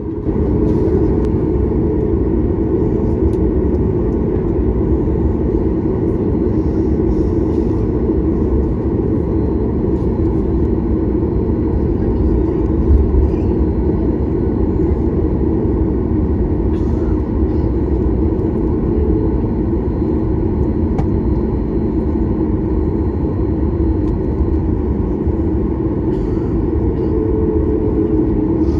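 Boeing 737 MAX 8 on its takeoff from inside the cabin: the CFM LEAP-1B engines at takeoff thrust make a loud, steady, deep rumble that swells right at the start and holds.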